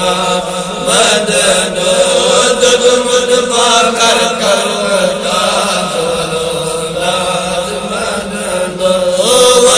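A group of men chanting a Kashmiri naat together, with sustained, melismatic voices over a steady low drone.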